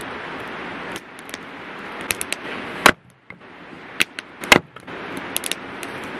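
Hatchet splitting firewood on a wooden chopping block: three sharp wooden knocks from about halfway on, the last the loudest. Under them run the steady rush of a river and the small pops of a campfire.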